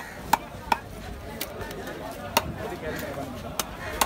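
Heavy fish-cutting knife striking a wooden log chopping block as a small diamond trevally is cut: sharp knocks, three quickly at the start, then spaced about a second apart.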